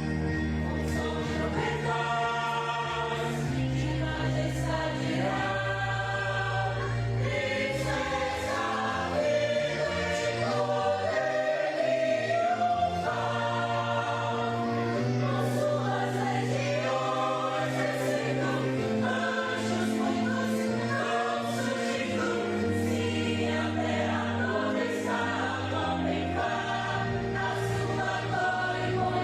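A church choir singing a gospel hymn in sustained chords, with instrumental accompaniment.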